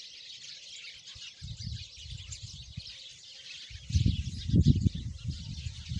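Outdoor nature ambience: a dense, steady chorus of birds chirping, with irregular low rumbling that grows heavier about four seconds in.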